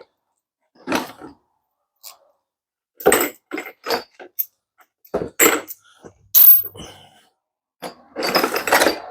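Bolts and metal transmission parts being handled: a scattered series of short metallic clinks and clunks, some with a brief ring, separated by quiet gaps.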